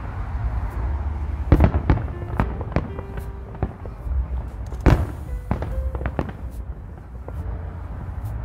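Aerial firework shells bursting at a distance, a run of sharp bangs at irregular spacing, the loudest about five seconds in, over a steady low rumble.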